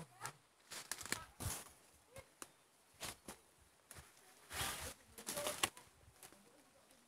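Footsteps and rustling through dense undergrowth: grass, leaves and stems brushing and crackling against the walker in irregular bursts, loudest from about four and a half to six seconds in.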